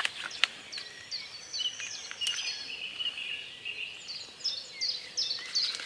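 Dawn chorus of several songbirds: overlapping short, high chirps repeated throughout, with a warbling song in the middle, and a few sharp clicks.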